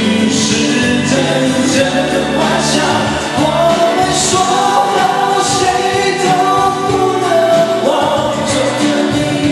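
Man singing a Mandarin pop ballad live into a handheld microphone over a karaoke backing track, holding one long note in the middle.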